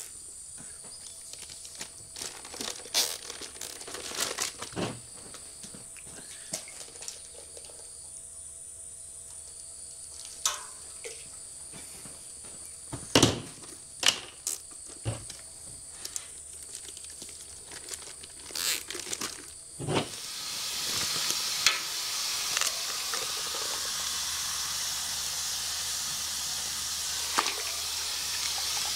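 Scattered knocks, clicks and clatter of things being handled, then an abrupt, steady hiss that starts about two-thirds of the way through and keeps going.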